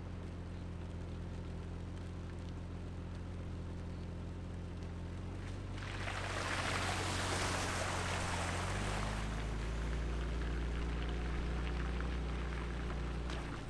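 An SUV's engine running at low speed. About six seconds in, the loud rush and splash of water thrown up by its front wheel begins as it drives through a shallow flooded road crossing, lasting about three seconds. After that the engine note drops lower and the wet tyres hiss on the pavement.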